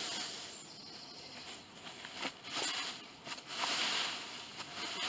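Rustling and crunching in dry leaf litter and twigs. The hiss swells and fades several times, loudest a little before four seconds in, with a few small sharp cracks.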